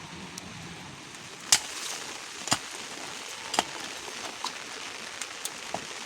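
Steady rain falling, with sharp taps striking a surface: three loud ones about a second apart near the middle, then several lighter ticks.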